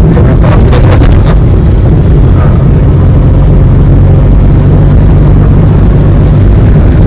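Toyota Liva hatchback on the move: a loud, steady low rumble of engine and tyres on the road.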